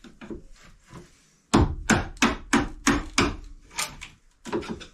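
A hammer striking wood in a quick, even series of about ten blows, roughly three a second, after a few softer knocks and scraping.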